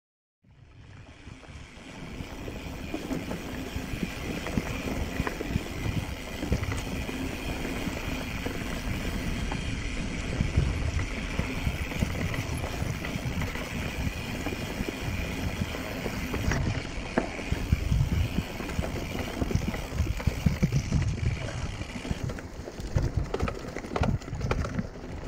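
Mountain bike riding down a rough dirt trail, heard from a camera on the rider: a steady low rumble of tyres on dirt and wind noise on the microphone, with scattered knocks and rattles from the bike over bumps. The sound fades in over the first couple of seconds.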